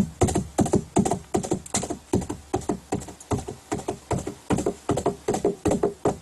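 Foley horse hooves: hand-held hoof props struck on a tray of damp grass and soil in a fast galloping rhythm, about three to four hoof strikes a second in uneven groups.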